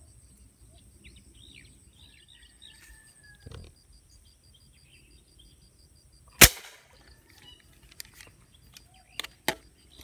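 One sharp shot from an air rifle firing a fishing dart down into the pond about six and a half seconds in, with a brief ringing after it. A few faint clicks follow near the end.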